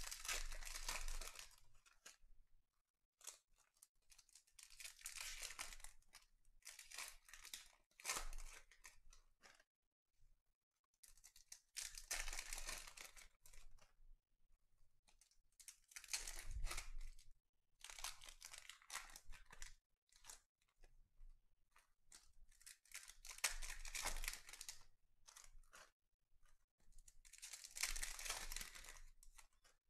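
Foil trading-card packs being torn open and crinkled, with the cards handled and sorted: a string of rustling, tearing bursts, each a second or two long, with short quiet gaps between.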